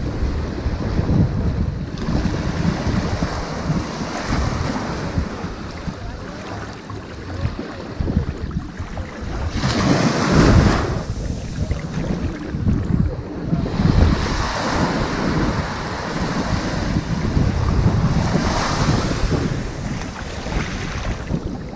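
Ocean waves breaking and washing up onto a sandy beach, the surf swelling and ebbing in surges, the biggest about ten seconds in.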